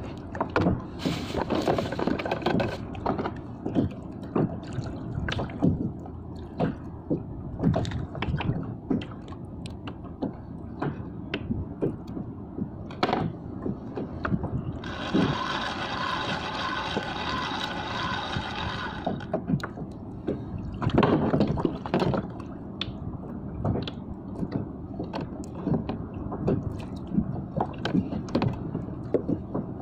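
Water lapping and sloshing against a small boat's hull, with frequent light knocks and clicks of fishing gear being handled. For about four seconds in the middle a steady whir of several tones runs alongside, and a louder slosh comes soon after.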